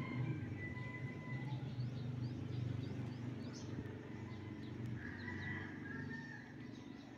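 Small birds chirping and twittering, with a few longer whistled notes, over a steady low hum.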